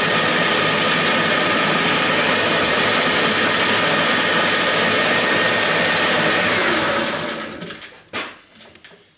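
Metal lathe running at high spindle speed while turning a small workpiece: a loud, steady whir with a few fixed tones, until the spindle is switched off about seven seconds in and winds down. A sharp click follows about a second later.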